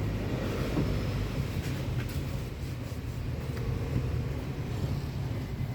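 Honda BR-V's 1.5-litre four-cylinder petrol engine running steadily with a low, even hum, being test-run after a tune-up.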